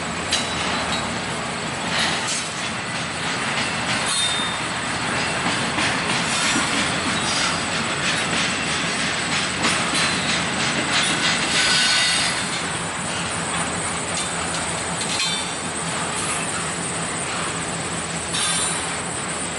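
Union Pacific double-stack intermodal train's loaded well cars rolling past: a steady rumble of steel wheels on rail with scattered clicks and clacks over the track, and a few short high-pitched wheel squeals.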